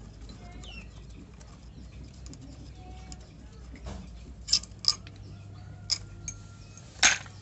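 Sharp metallic clinks as the cam sprocket and timing chain are worked loose by hand on a Yamaha Jupiter motorcycle's cylinder head. Two come a little past halfway, another about a second later, and the loudest just before the end, over a low steady hum.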